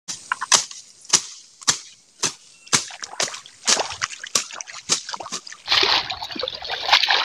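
A long-handled tool chopping into weeds and soil on a field bank, sharp strikes at about two a second. About five and a half seconds in, the strikes give way to water and mud splashing and sloshing as hands work in a flooded paddy field.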